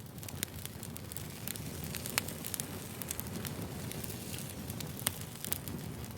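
Cabbage rolls simmering in soup in a pot: a steady low bubbling with sharp pops and crackles scattered through it.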